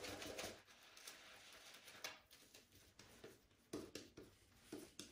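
Faint wet swishing of a shaving brush working soap lather that fades about half a second in, followed by a few short soft taps and clicks.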